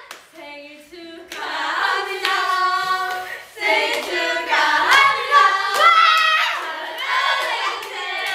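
Several voices singing together, starting about a second in, with hand claps.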